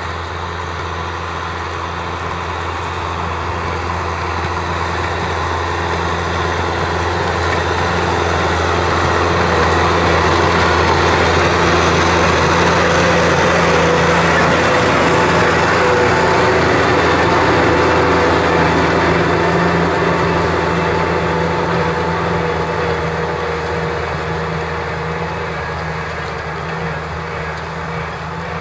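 Kubota M6040SU tractor's four-cylinder diesel engine running steadily under load while plowing. It grows louder toward the middle as the tractor passes close, then fades as it pulls away near the end.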